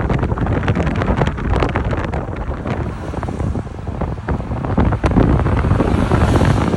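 Wind buffeting the microphone in irregular gusts and crackles over a steady low rumble.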